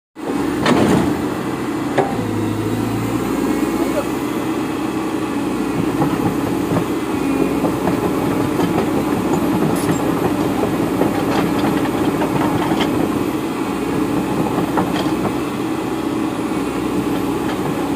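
Caterpillar hydraulic excavator's diesel engine running steadily, with a few sharp clicks scattered through.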